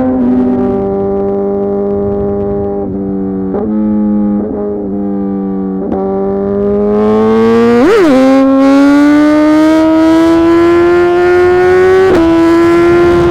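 Suzuki GSX-R 1000 R inline-four engine through a full titanium SC-Project exhaust, running under way on the road. It holds fairly steady revs with a few small dips, gives a quick sharp rev spike about eight seconds in, then pulls with slowly rising revs and changes gear near the end.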